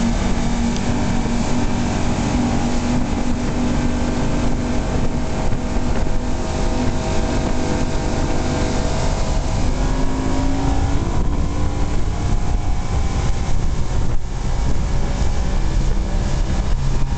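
Johnson 225 V6 two-stroke outboard motor running steadily at high speed under way, with wind on the microphone.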